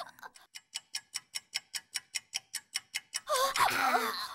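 Clock-ticking sound effect: quick, even ticks, about five a second, for about three seconds. A voice comes in near the end.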